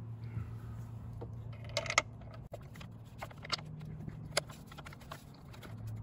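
Scattered small clicks and taps of a Phillips-head screw being turned by hand into a sun visor clip bracket, sharpest about two seconds in and again past four seconds, over a faint low hum.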